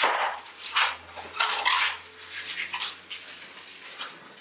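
A 260 latex modelling balloon squeaking and rubbing in the hands as it is twisted into small pinch twists, in a string of short, irregular squeaks.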